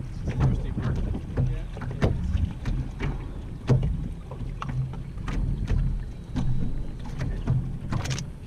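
Small waves slapping irregularly against the hull of a Weta trimaran sailing slowly, over a low rumble of wind on the microphone.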